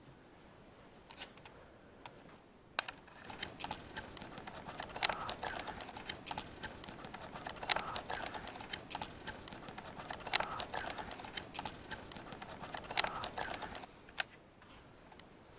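Light clicks and rustles, like hands handling small objects, with a sharper click about every two and a half seconds. They stop shortly before the end.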